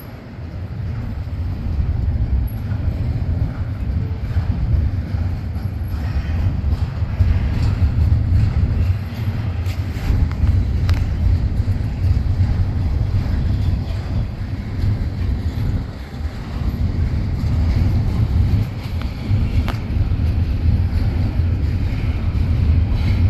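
Union Pacific freight train rolling past: a steady low rumble from the cars on the rails, with a few sharp clicks or clanks.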